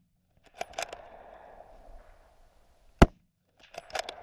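A few sharp clicks and knocks with faint rustling between them, and one short, loud crack about three seconds in.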